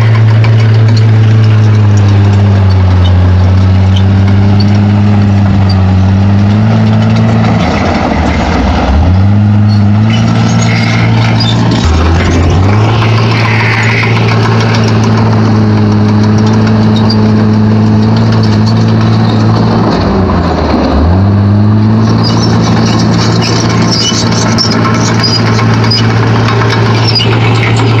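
D31P bulldozer's diesel engine running steadily and loudly, its pitch sagging and picking back up a few times, around a third of the way in, near the middle and about two thirds of the way in.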